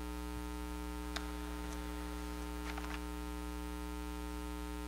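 Steady electrical mains hum in the audio feed, with a few faint ticks about a second in and again near the three-second mark.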